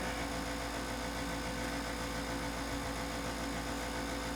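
A steady low hum with a faint constant tone, without any clicks or other events.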